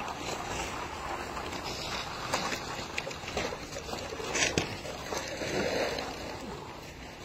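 Snow shovels and dragged plastic grid panels scraping over slushy snow on pavement, a rough continuous scraping with a few sharper knocks, the loudest about four and a half seconds in.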